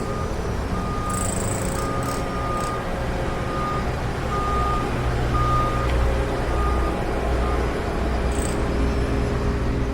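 Backup alarm on heavy diesel demolition machinery beeping at an even pace, a little faster than once a second, over the machine's engine running. The beeps stop about three-quarters of the way through.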